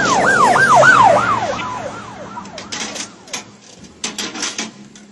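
Police siren in a fast yelp, its pitch rising and falling about three times a second, loudest about a second in and dying away by about two seconds. A few short sharp knocks follow.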